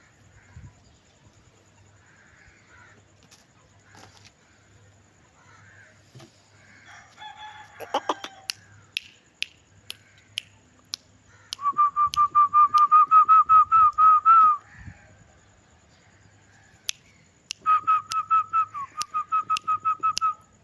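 Aseel chickens calling. A short falling call comes about eight seconds in, then two runs of quick, evenly repeated high notes, each lasting about three seconds, over a few scattered clicks.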